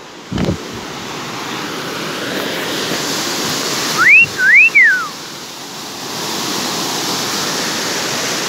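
Rushing water of a small waterfall pouring into a rocky pool, steady and growing louder over the first few seconds, after a low bump of camera handling at the start. About halfway, someone whistles two quick notes, each rising and then falling; these are the loudest sounds.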